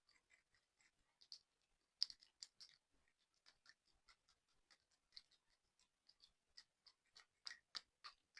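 Slime being squeezed and poked by hand, making quiet, irregular little clicks and pops, a few a second, with the loudest about two seconds in and a cluster near the end.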